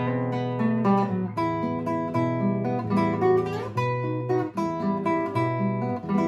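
Acoustic guitar playing an instrumental: chords over a bass line that steps from note to note.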